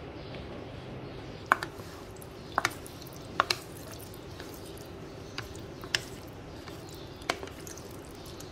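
Knife and wooden spatula cutting and breaking set strawberry jelly into cubes in a plastic tub: irregular sharp taps of the utensils against the tub, with soft wet squishing of the jelly, over a faint steady hum.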